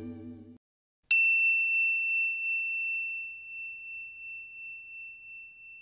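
A single bright bell-like ding about a second in, ringing on one high tone and slowly fading over several seconds. The tail of guitar background music fades out just before it.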